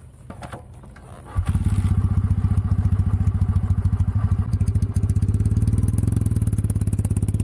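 Kawasaki W650 air-cooled parallel-twin engine starting up about a second and a half in, then running with an even low exhaust beat as the bike pulls away, with a few small clicks before it fires.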